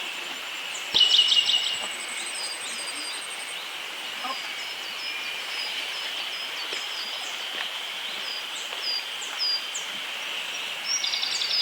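Small forest songbirds calling and singing. One bird gives a loud, rapid run of repeated high notes about a second in and again near the end, while short, high, down-slurred notes repeat throughout over a steady high background hum.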